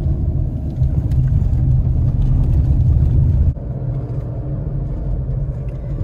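Steady low rumble of road and engine noise heard inside a moving car's cabin. About three and a half seconds in it drops abruptly to a quieter rumble.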